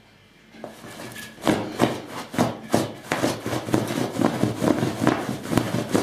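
A basenji digging and scratching at a fabric-covered dog cushion with its front paws. The scratching starts about a second in and runs fast, several strokes a second.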